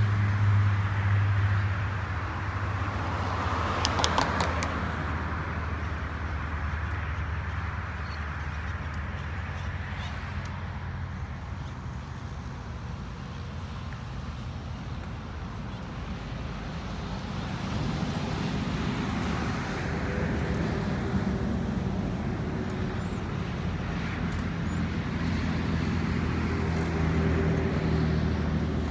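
Road traffic: a steady low hum of vehicles with a noise that swells and fades as vehicles pass, loudest about four seconds in and again in the second half.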